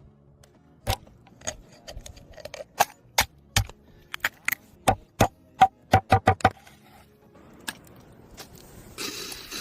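A run of sharp knocks at uneven spacing, coming quicker and closer together around six seconds in, then stopping. A short hiss follows near the end.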